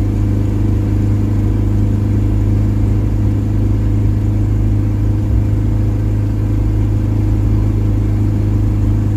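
Car driving at a steady speed, its OM616 four-cylinder diesel engine giving a steady low drone through a homemade exhaust fitted with a Saab muffler.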